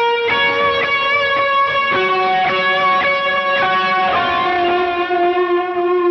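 Les Paul electric guitar playing a slow lead melody of single sustained notes, each ringing on into the next, with a long held note in the second half.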